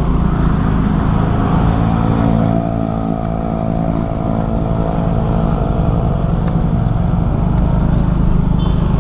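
Road vehicle engine running at a steady pitch, with heavy low rumble.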